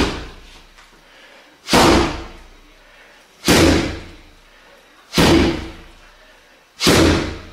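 Dropping hammer-fist strikes (otoshi tetsui uchi) landing on a pad atop a stack of car tyres: five heavy thuds about 1.7 seconds apart, each ringing out briefly.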